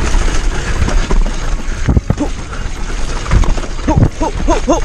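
Downhill mountain bike descending a rough dirt trail: wind on the microphone mixed with the rattle and clatter of the bike over the ground, with a hard knock about two seconds in. The rider says the bike's rear hub has failed and sounds horrible. Near the end come short voiced sounds from the rider.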